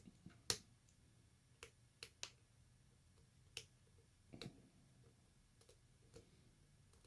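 Faint, scattered clicks of a lock pick and tension wrench working the pins inside a lock, about eight in all at irregular intervals, the sharpest about half a second in.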